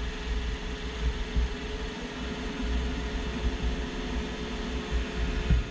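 iRobot Roomba i7 robot vacuum running: a steady whir of its motors, with an uneven low rumble underneath.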